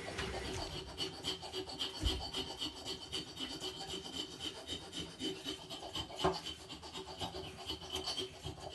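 Zanussi Lindo 100 washing machine tumbling its wash in the drum while the water heats to 40 degrees, with steady rubbing, swishing and small irregular clicks.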